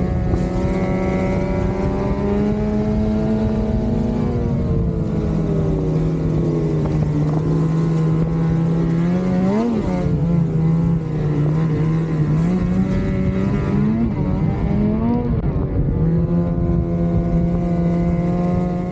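Lynx Shredder RE 850 Turbo snowmobile's turbocharged two-stroke engine, fitted with a Jaws trail muffler, running at a steady cruise. Its pitch eases down about four to six seconds in, then rises in several short throttle blips through the middle before settling steady again.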